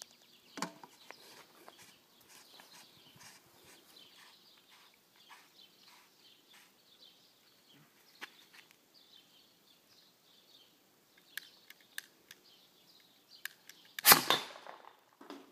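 Homemade potato gun firing once near the end, a single loud bang with a short tail, after a long stretch of faint clicks and rustling while it is being aimed.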